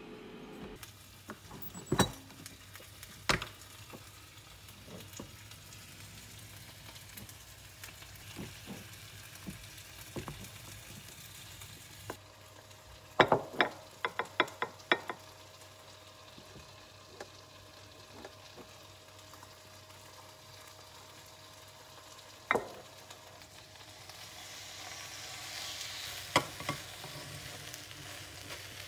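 Kitchen serving sounds: scattered sharp clicks, then a quick run of taps as a plastic rice paddle scoops rice into ceramic bowls. Near the end a soft hiss swells as food from a frying pan is tipped onto a plate.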